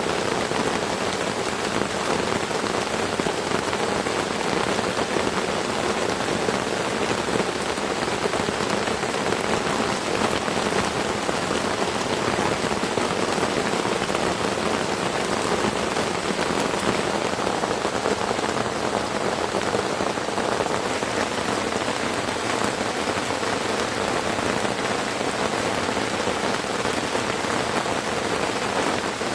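Heavy rain falling steadily: a dense, even patter of raindrops.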